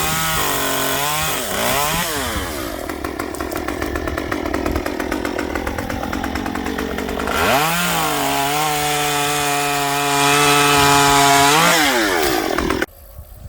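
Stihl MS 194T top-handle chainsaw, a small two-stroke, revving up to full throttle twice and easing back each time. Between the two revs is a rougher stretch as the chain works through wood. The sound cuts off suddenly near the end.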